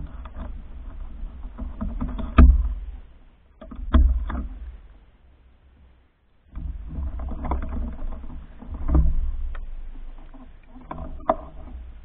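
Snow shovel scraping and pushing through snow in three long strokes, with sharp knocks about two and a half and four seconds in.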